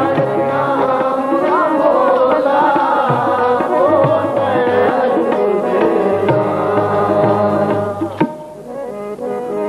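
Harmonium and tabla playing Sikh kirtan, the harmonium holding steady chords while the tabla's low bass drum strokes and sharper right-hand strokes keep the beat. A singing voice glides over them in the first few seconds. The music thins out briefly after a sharp tabla stroke about eight seconds in.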